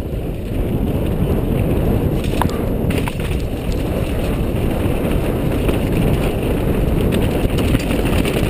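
Wind buffeting a helmet-mounted action camera's microphone as a downhill mountain bike runs fast over a rocky, muddy track, with scattered clicks and rattles from the tyres on stones and the bike's frame and components. The rush builds over the first second, then holds steady and loud.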